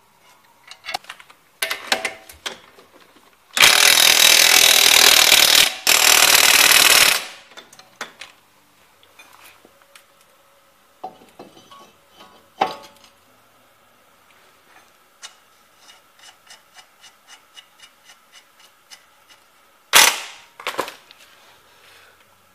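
Power tool, likely an air impact wrench, run in two loud bursts of about two seconds each on the Camry's front suspension and hub hardware. Metal clinks of tools and parts come around them, then a ratchet ticking about four times a second and two sharp knocks near the end.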